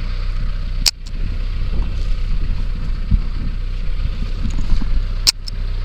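Vehicle engine idling with a steady low rumble, broken by two sharp clicks about four and a half seconds apart.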